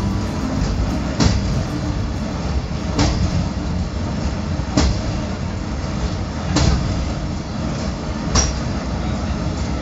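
Czech Railways class 810 diesel railcar standing with its engine idling: a steady low rumble, with a sharp click repeating about every two seconds.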